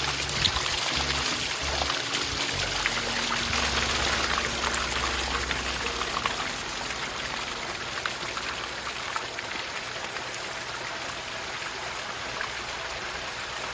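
Water running and splashing steadily down a pondless waterfall's rock creek.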